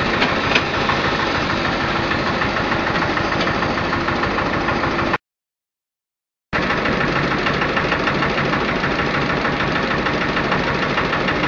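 Small stationary engine running steadily, powering a hydraulic seaweed press. The sound cuts out completely for about a second and a half just before halfway, then resumes unchanged.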